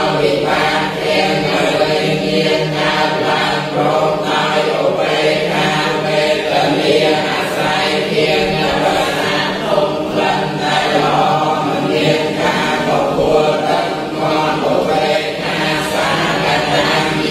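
Buddhist monks and lay followers chanting together in unison, reciting from books as a steady, unbroken stream of many voices.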